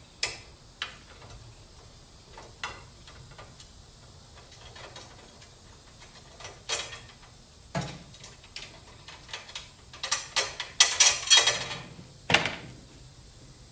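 Small metal clicks and taps of a 7/16 open-end wrench and an Allen wrench working a 1/4-20 bolt on a throttle linkage rod. Near the end comes a louder run of clattering as tools are handled in a plastic toolbox.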